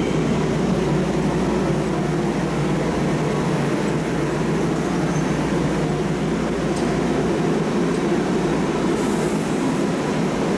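MARTA rapid-transit train running through an underground station, a steady rumble of the train's wheels and equipment echoing off the platform walls. The deepest part of the rumble drops away about three seconds in.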